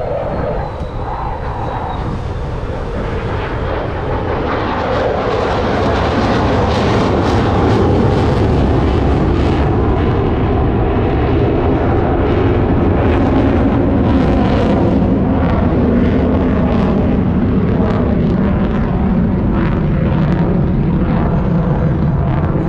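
F-35 Lightning II's single afterburning turbofan jet engine roaring during a display pass. It grows louder over the first several seconds, then stays loud as its pitch slides slowly downward.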